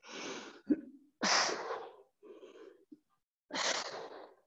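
A woman breathing hard and audibly in and out through the mouth, in time with an abdominal crunch exercise: four separate breaths, the loudest a little over a second in and again about three and a half seconds in.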